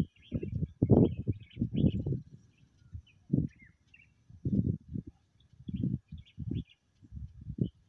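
A hand scraping and pressing seeds into loose dry soil close to the microphone, in irregular short scuffs that are loudest in the first couple of seconds. Small birds chirp faintly in the background.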